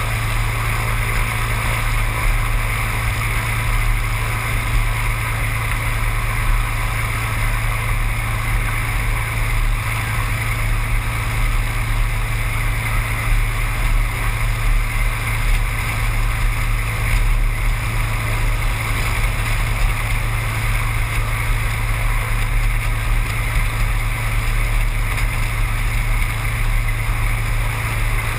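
Seaplane's propeller engine running steadily, a constant drone with no change in speed.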